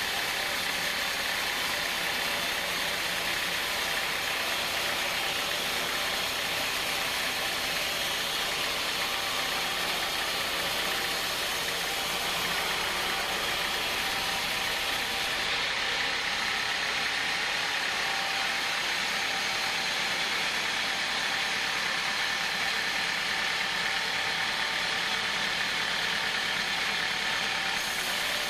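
Band sawmill running steadily, its band blade sawing lengthwise through a thick hardwood beam on the rail carriage: an even, continuous mechanical whine and hiss.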